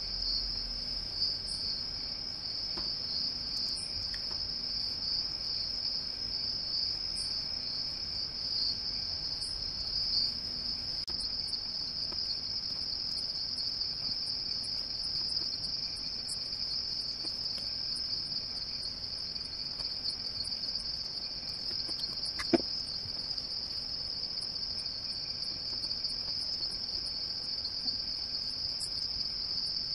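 Crickets trilling, a steady high-pitched chirring that runs without a break, with faint ticking above it. A single sharp click about two-thirds of the way through.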